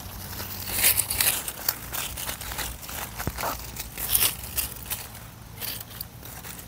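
Dry grass mulch and leaves rustling and crackling in irregular bursts under hands working around the base of a plant.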